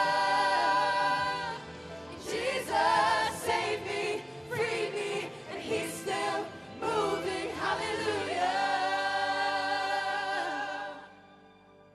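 Gospel-style worship singing by a group of voices: a held chord, a run of moving notes, then another long held chord that cuts away about eleven seconds in.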